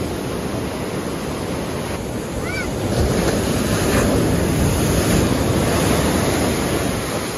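Ocean surf breaking on the beach. A wave crashes about three seconds in, and the wash of water stays louder for a few seconds.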